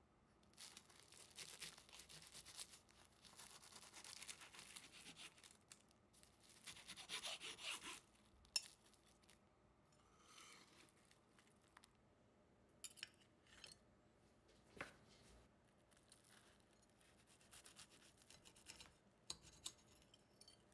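Faint kitchen handling sounds: rubbing and scraping against pastry or a tray, with a few light clicks, the sharpest about eight seconds in.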